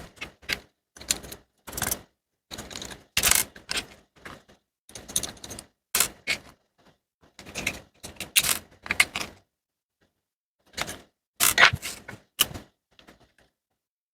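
Irregular clicks, taps and knocks of small hard parts being handled and pried as a small hair clipper is taken apart, with a brief pause before a last cluster of clicks.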